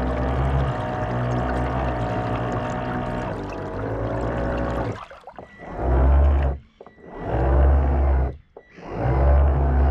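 Electronic background music with a deep pulsing bass and gliding synth tones. It drops out abruptly twice for about half a second.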